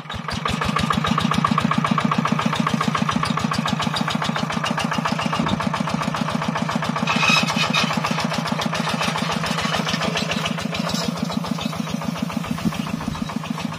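A small engine catches and then runs steadily with an even, rapid firing beat. There is a brief louder moment about seven seconds in.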